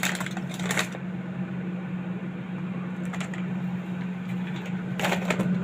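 Steady low electrical appliance hum, with a few brief rustles and knocks of packets and boxes being handled, about three seconds in and again near the end.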